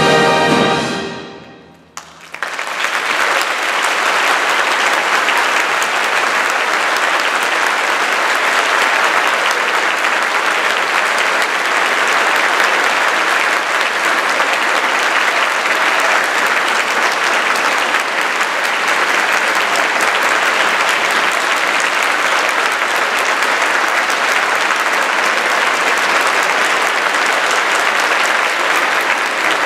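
The full orchestra's final chord fades into the hall's reverberation, and about two seconds in the audience breaks into steady, sustained applause.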